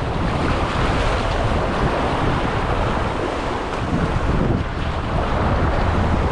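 Rough sea surging and breaking against shoreline rocks, with wind blowing across the microphone: a loud, steady rushing noise.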